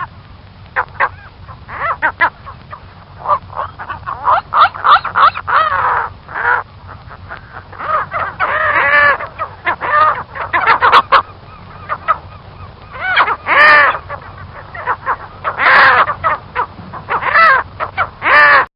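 A bird calling over and over in short calls and longer drawn-out ones, the loudest coming in clusters through the second half.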